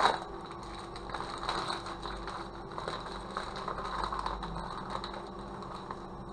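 Plastic postal mailer bag being torn open by hand: a sharp rip at the start, then irregular crackling and rustling of the plastic that dies down after about five seconds.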